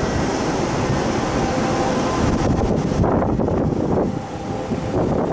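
Kintetsu electric train pulling out of the station and rolling past close by, with steady running and motor noise. From about halfway through, wind buffets the microphone in uneven gusts.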